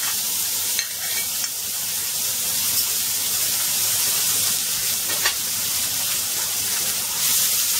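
Chopped onion, ginger and garlic sizzling steadily in hot oil in a nonstick frying pan, with a couple of sharp clicks about a second in and again about five seconds in.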